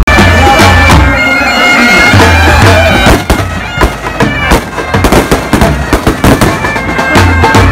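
Outdoor band music of reed pipes and drums: held piping tones over loud, sharp drum beats. It cuts in suddenly at the start.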